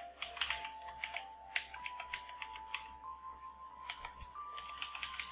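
Typing on a computer keyboard: a quick, irregular run of key clicks as a long string of characters is entered.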